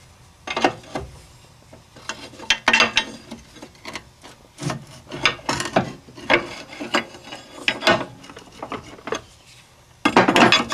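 Metal hand tools working on the car's front suspension and axle: irregular clanks and scraping strokes in quick clusters, like a ratchet or bar being worked.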